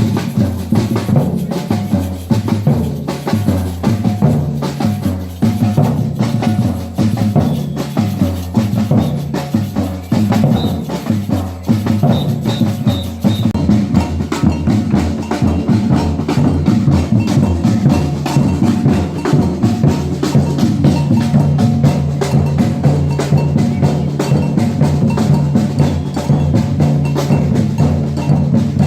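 Batucada drum ensemble playing a steady samba rhythm: deep surdo bass drums under a dense run of sharp higher drum strokes.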